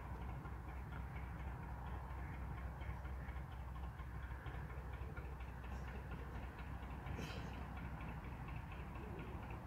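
Narrowboat's diesel engine running as the boat passes: a steady low rumble with fast, even light ticking over it.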